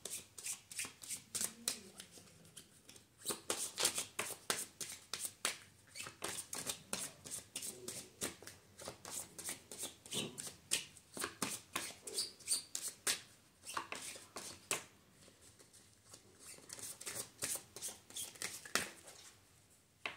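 A deck of tarot cards shuffled by hand: a long run of rapid soft flicks and riffles, easing off about fifteen seconds in, with a last flurry near the end.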